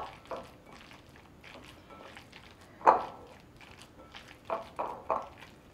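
Hands squishing and kneading a raw ground beef meatloaf mixture in a bowl: short, irregular wet squelches, the loudest about three seconds in and several more near the end.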